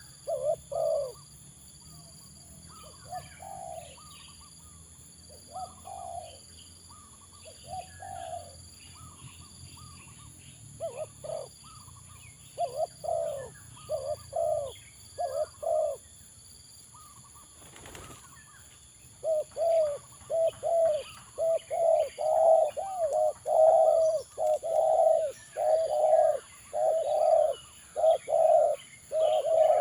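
Spotted doves cooing: scattered coo phrases at first, then a long run of quickly repeated coos over the last third, with fainter small-bird chirps behind and one sharp knock just before the run starts.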